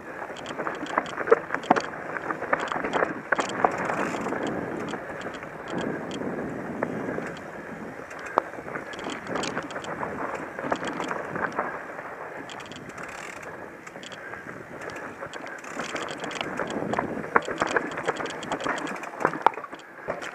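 Mountain bike riding fast down a rocky dirt singletrack: a continuous rumble of tyres on dirt and stones, with frequent sharp clicks and rattles as the bike jolts over rocks.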